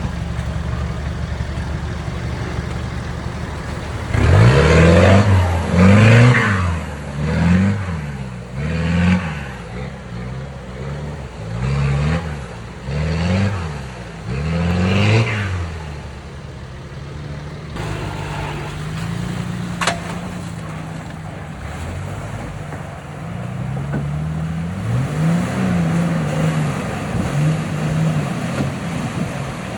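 Four-wheel-drive vehicle's engine revving up and dropping back over and over, roughly every second and a half, as it works along an off-road track. It then runs more steadily, with one sharp click, before revving up and down a few more times near the end.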